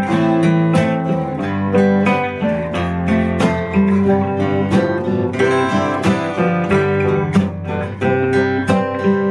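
Acoustic guitar strumming chords in a steady rhythm, as part of a live band song with no singing.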